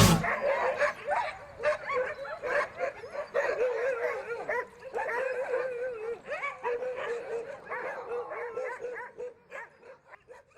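A pack of Greenland sled dogs howling and yipping together, many wavering voices overlapping, dying away near the end.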